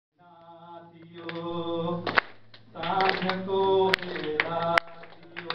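Unaccompanied singing into a microphone, held notes, with a few sharp hand claps.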